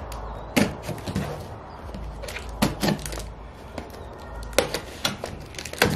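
A Kershaw Blur folding knife cutting through packing tape on a small cardboard box, with about nine irregular sharp clicks and knocks as the blade and hands work the tape and cardboard.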